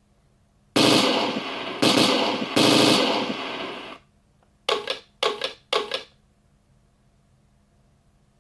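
King Tiger tank sound effects played through an RC tank sound board's speaker. About a second in come three loud sudden blasts in quick succession, each trailing off. Around five to six seconds there are three short sharp bursts. A faint steady hum runs underneath.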